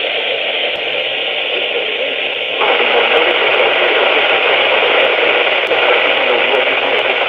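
Steady hiss of radio static from a software-defined radio receiver tuned to a 162 MHz NOAA weather-radio channel with no clear voice on it. About two and a half seconds in, the hiss gets louder and rougher.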